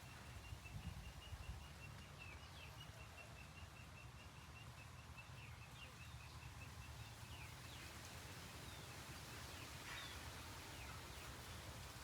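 Faint outdoor ambience: a bird repeats a short high note about seven times a second, stopping about halfway through, with a few short chirps over a low rumble.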